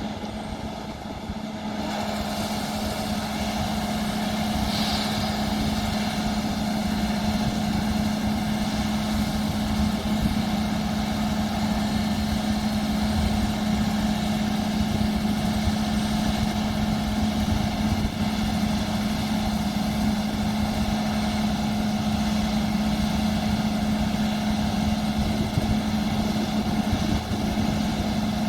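Combine harvester running steadily: a constant engine drone with a strong low hum and the rushing noise of the machine working, growing louder about two seconds in.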